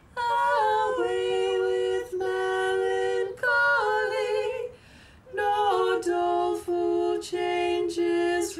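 Two women singing a duet unaccompanied, in two-part harmony, a song from a music book well over 100 years old. Phrases of held notes, with a short break about five seconds in.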